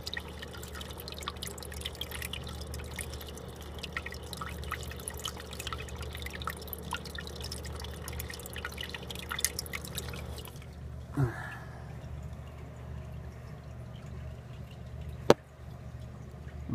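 Aquarium water circulation: a steady low hum under many small drips and trickles, which stop about ten seconds in. A single sharp click comes near the end and is the loudest sound.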